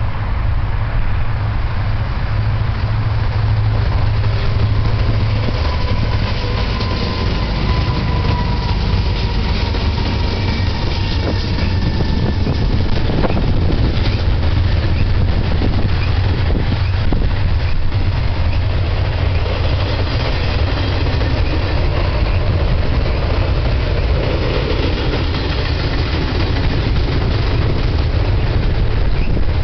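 BNSF double-stack intermodal freight train passing close by. The lead SD70ACe diesel locomotives give a low engine drone over the first several seconds, then the loaded well cars roll past, steel wheels running on the rails with a few sharp clanks.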